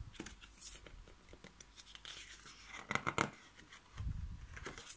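Handling of a picture book's stiff pages and paper flap: soft rustles and small clicks as the flap is folded back and a page is turned, with a dull bump about four seconds in.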